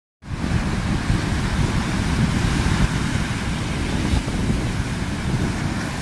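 Strong wind buffeting the microphone with a gusty low rumble, over rough sea surf breaking and washing against a rocky shore.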